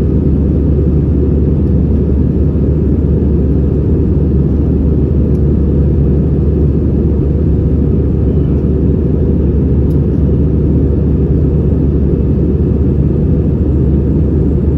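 Steady low drone of an Airbus A320-214's CFM56 jet engines and airflow, heard from inside the passenger cabin.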